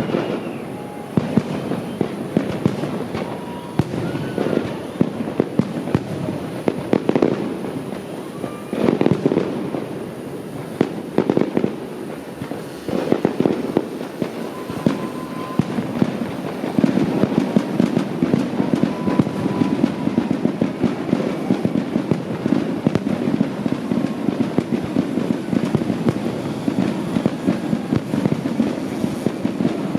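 Fireworks display: a rapid, irregular run of bangs and crackling that becomes a dense, near-continuous crackle a little past halfway.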